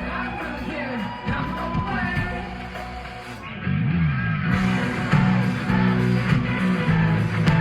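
Live rock band playing through a PA with vocals, electric guitars, bass and drums. About three and a half seconds in, heavy sustained low bass notes and a guitar riff come in and the music gets louder.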